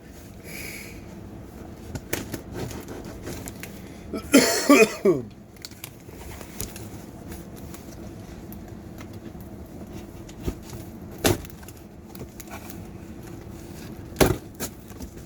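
A mailed package being handled and opened by hand: scattered knocks and clicks, the sharpest two near the end, over a steady low hum, with a short burst of voice about four seconds in.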